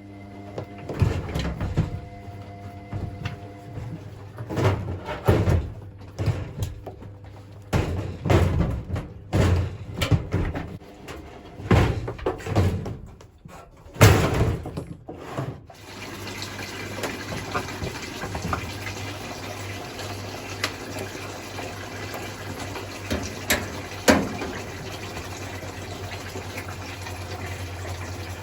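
Washing machine taking in water: irregular knocks and splashes for roughly the first half, then a steady rush of water filling the machine over a low hum, broken by a few clicks.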